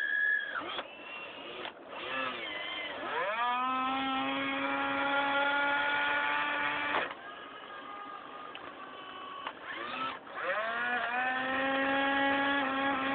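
RC excavator's electric motor whining. It spins up in pitch, holds steady for about four seconds and cuts off abruptly, then spins up again a few seconds later.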